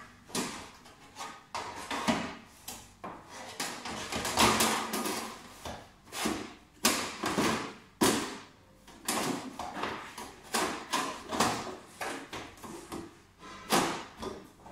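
Casing panel of a Soprano laser machine being fitted back onto the cabinet: a string of irregular knocks and clacks as it is pushed and pressed into place.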